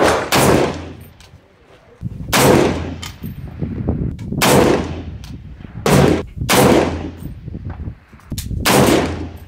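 Semi-automatic .308 Winchester Springfield Armory M1A rifle firing a string of single shots, about one to two seconds apart, each a sharp report with a long echoing tail under the range's roof.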